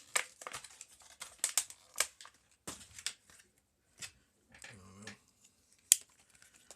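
Sharp clicks and short scrapes of a cheap folding pocket knife and a cardboard box being handled as the serrated blade is set to cut the cardboard.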